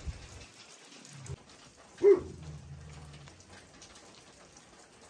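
Rain falling and dripping off the roof eaves, with a single brief, loud call about two seconds in.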